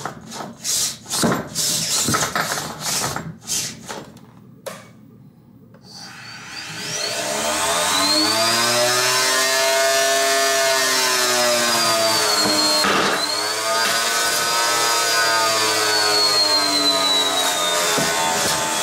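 A few sharp hits, then the weapon of a 3 lb beetleweight combat robot spinning up its 7.5-inch AR500 steel blade with a rising whine. The whine holds at speed, is broken by a sharp click about halfway through, and runs on with its pitch slowly falling.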